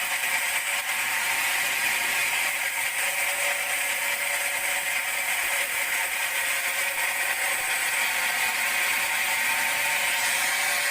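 Large band sawmill running steadily while it rips a teak log: a constant whine of several steady tones over a dense hiss, with mechanical whirring and clatter.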